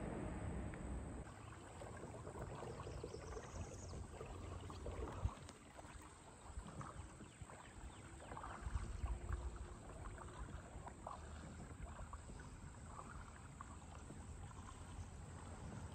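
Quiet water sounds from a kayak moving on a calm river: scattered light splashes and drips, over a low rumble. A single sharp knock about five seconds in.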